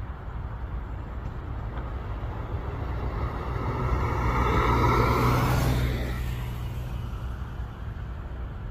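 A car driving past close by, its engine and tyre noise swelling to a peak about five seconds in and then fading, over a steady low hum.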